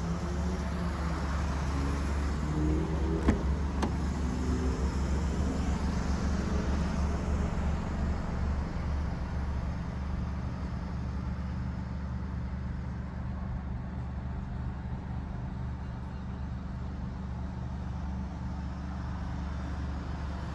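The Alfa Romeo Stelvio Quadrifoglio's 2.9-litre twin-turbo V6 idling steadily. There is one sharp click about three seconds in.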